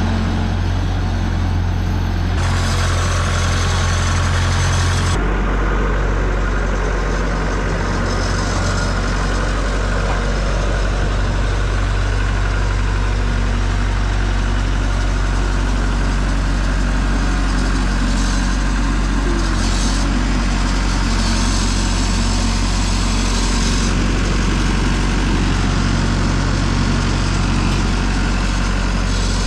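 Old skid-steer loader's engine running steadily as the machine is driven, a low steady engine note whose pitch drops about five seconds in.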